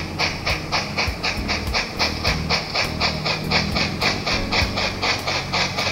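Sound-equipped model of a Baltimore and Ohio articulated steam locomotive chuffing in a steady, quick rhythm of about five hissing exhaust beats a second as it runs. Low held tones of background music lie underneath.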